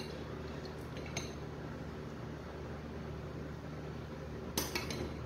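Metal spoon clinking lightly while spreading a creamy filling on bread: one small clink about a second in and a quick cluster of clinks near the end, over a steady low hum.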